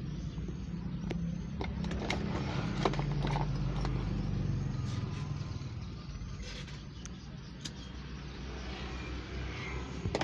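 Small motorcycle engines running in street traffic: one close engine hums steadily and fades away after about six seconds, with a few light clicks and knocks.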